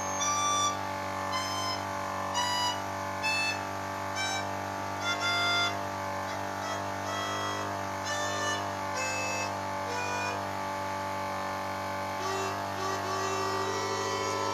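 Melodica played with air from a portable electric air compressor through a hose instead of by mouth: a slow run of reedy held notes over the compressor's steady motor hum.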